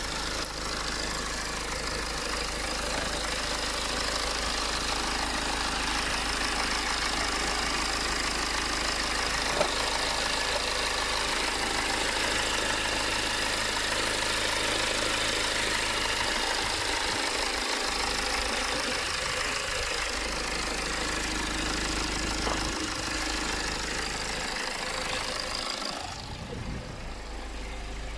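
BMW 520d's four-cylinder diesel engine idling steadily with an even diesel clatter, now smooth after its fuel quantity control valve was replaced, where before it hunted up and down and stalled. The sound turns duller near the end.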